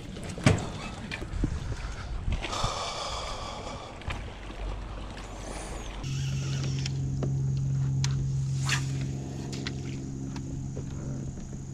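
Knocks and clunks from a MotorGuide trolling motor's shaft and mount being handled, with one loud clunk about half a second in. About halfway through the sound switches to the steady low hum of the electric trolling motor running, with a few light clicks over it.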